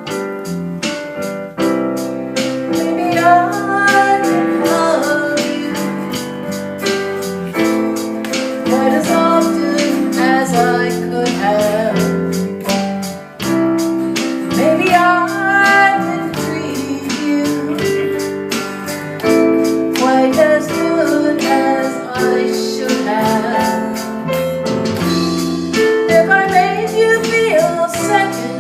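Small band playing a slow ballad: electric piano chords over Fender bass, drums and rhythm guitar, with a female voice singing the melody.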